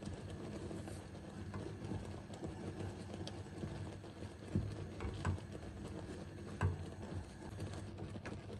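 Wooden spoon stirring thickened barley porridge (talbina) in a frying pan, scraping through it, with three sharper knocks of the spoon against the pan in the second half, over a steady low hum.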